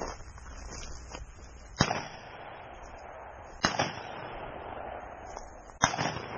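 Shotgun fired three times at a running rabbit, the shots about two seconds apart, each with a short echo trailing off.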